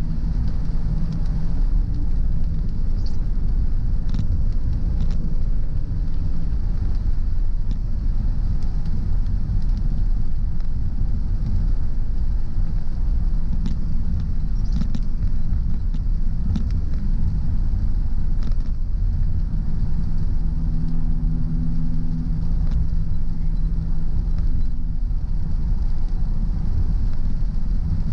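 A car driving along a road, its engine and tyres making a steady low rumble with a faint hum, and a few light scattered clicks.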